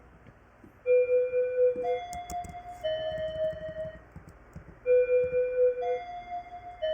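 Electronic keyboard melody playing back in a loop from an Ableton project: a phrase of three held notes, each about a second long, repeating about every four seconds, with faint ticks underneath.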